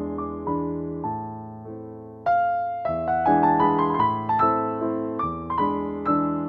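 Background piano music: a gentle melody of struck notes that fade after each strike, growing louder about two seconds in.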